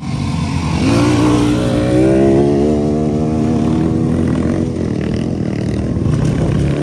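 Dirt bike engines running on a dirt trail, with one bike accelerating: its pitch climbs over the first couple of seconds and then holds steady. The sound turns rougher and less even after about five seconds as more bikes come through.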